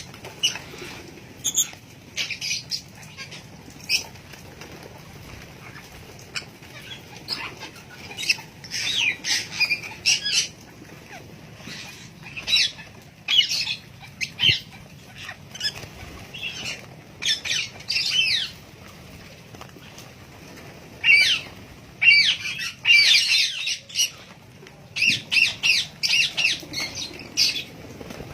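Birds calling: clusters of short, high-pitched chirps and squawks with quick pitch slides, separated by brief pauses.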